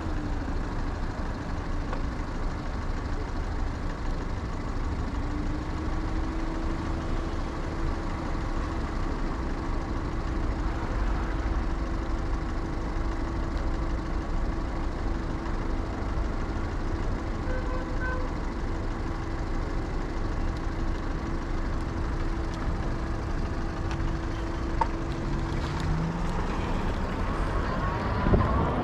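Street traffic with passing vehicles. A steady low hum runs through most of it, and the noise grows louder near the end.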